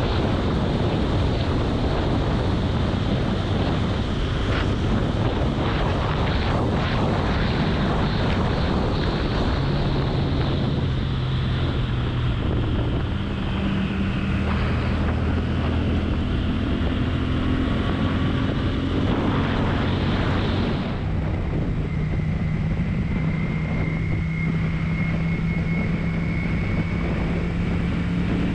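A Honda CX 500's liquid-cooled V-twin engine running as the motorcycle is ridden, under heavy wind noise on the microphone. About two-thirds of the way through the wind noise drops away and the steady engine note comes through more plainly.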